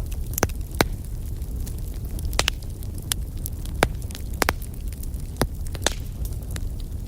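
Campfire burning: a steady low rumble of flames with sharp, irregular crackles and pops from the burning wood.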